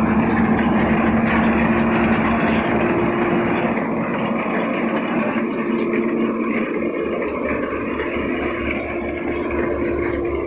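Machinery running steadily with a constant hum in two tones over a noisy mechanical whirr.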